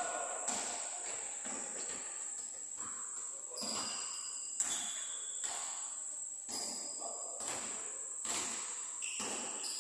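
Basketball court sounds: scattered thumps and a few short sneaker squeaks over a steady high-pitched buzz.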